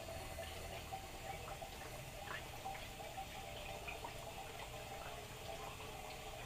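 Water running and trickling through a hydroforming press's hoses and plumbing, with small drips and ticks, low and steady.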